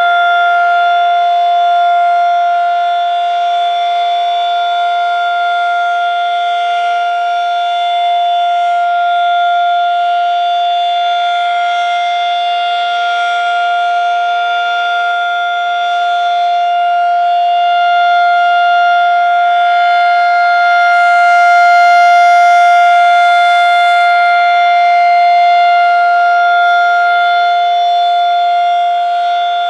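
Federal Signal 2001-130 outdoor warning siren sounding during a test, held at full speed as a steady, unwavering chord of two tones. Loudness swells a little past the middle and eases again.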